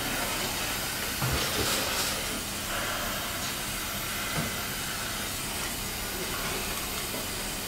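Dental air syringe blowing a steady hiss of air into the patient's mouth over the grafted extraction socket.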